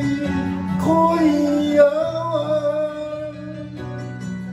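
A man singing an enka ballad over a karaoke backing track with guitar. About a second in he starts a long held, wavering note that fades out after about three seconds, leaving the backing track.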